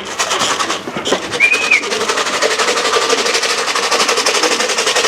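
An engine running with a rapid, even clatter, with a short whistle-like tone about one and a half seconds in.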